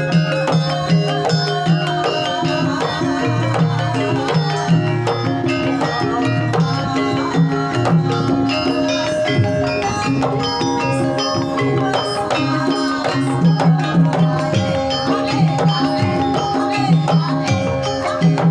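Javanese gamelan playing a gending: bronze metallophones and gongs ringing held tones over a hand drum beating a quick, busy rhythm.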